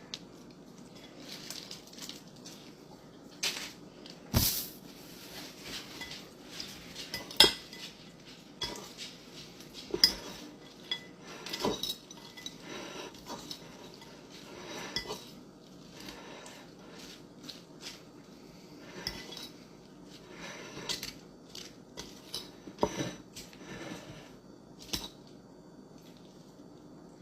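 Metal cutlery clinking and scraping against a dish, in many irregular short knocks and clinks. A few are louder, about four and a half and seven and a half seconds in.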